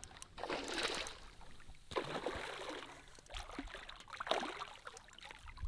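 Faint, irregular splashing and trickling of water, in several short patches with quiet gaps between.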